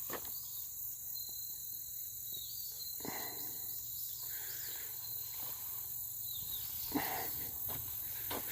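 Outdoor night ambience with insects chirring steadily, and a couple of soft knocks, one about three seconds in and another near seven seconds.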